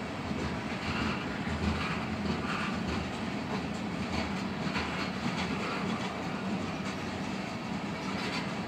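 Freight train of oil tank cars rolling past: a steady rumble of steel wheels on rail, with a clatter recurring about once a second as wheel sets cross the rail joints.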